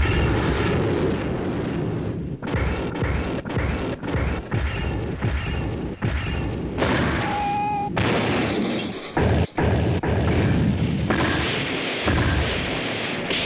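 Television battle sound effects of a giant robot fight: a dense run of booms, crashes and sudden metallic impacts, over background music.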